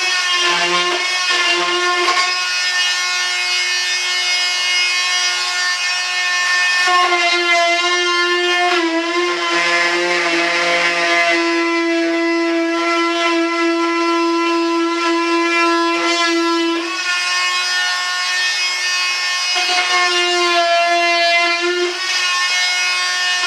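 High-speed rotary tool whining steadily as it trims the rough edge of a cured fiberglass resin part. Its pitch sags and shifts briefly a few times as the cut loads it.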